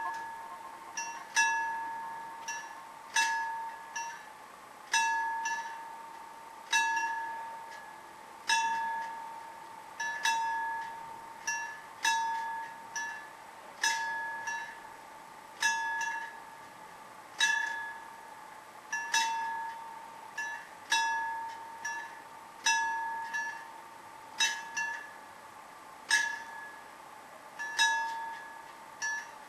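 Level-crossing warning bell ringing with a red signal lit, the warning before the barriers come down. It rings in pairs, a strong strike and then a weaker one, about one pair every two seconds, each stroke ringing out and fading.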